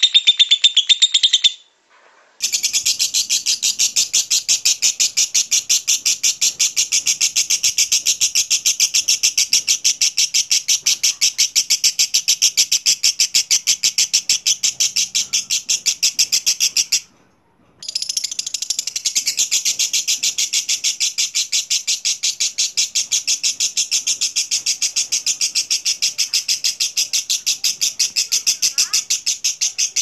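Fischer's lovebird giving its long 'ngekek' song: a high, very fast, unbroken chattering trill. A short snatch comes at the start, then after a pause a long run of about 15 s, a break of under a second, and another run of about 12 s.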